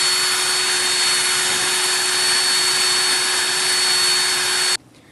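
Power drill running at a steady speed, spinning a mixing paddle in a gallon can of oil-based enamel to stir settled solids back into the paint. It gives a steady whine and stops suddenly about a second before the end.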